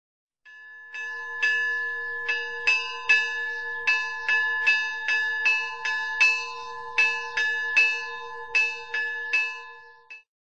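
Church bells ringing: several bells struck about twice a second in an uneven rhythm over a sustained ringing hum, stopping just before the end.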